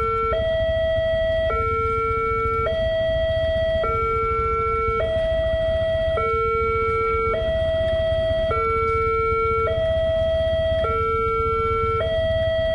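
Railway level-crossing warning alarm sounding while the barrier is down: an electronic two-tone hi-lo alarm that switches between a higher and a lower note about every 1.2 seconds, over a steady low rumble.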